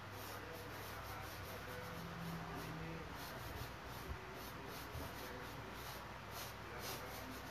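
Quick, irregular scratchy strokes of a painter's tool rubbing across a large board, a couple of strokes a second, over a steady low hum.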